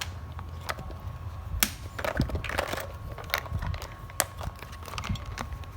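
Irregular sharp clicks and crackling from hands working on an ASUS X450C laptop, its plastic parts clicking under handling, with a brief crackly run about two seconds in.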